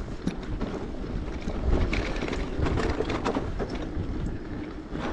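Bicycle being ridden, with a continuous low rumble and many light rattling clicks, and wind noise on the microphone.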